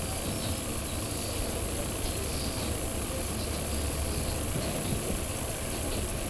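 KiHa 40 diesel railcar running at speed, heard from inside the passenger cabin: a steady low engine drone mixed with the rumble of the wheels on the track.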